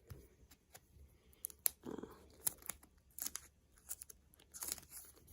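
Photocards and their packaging being handled: irregular light clicks and crinkly rustles, a dozen or so short sounds.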